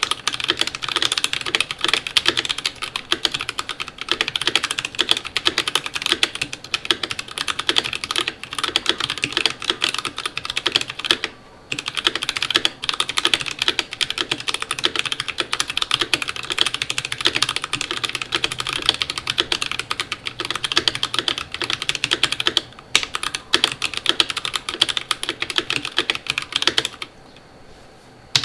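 Fast, continuous typing on a Keychron V5 mechanical keyboard with an aluminium plate, lubed Akko Jelly Blue switches and GMK keycaps. There are short pauses about 11 seconds in and about 23 seconds in, and the typing stops about a second before the end.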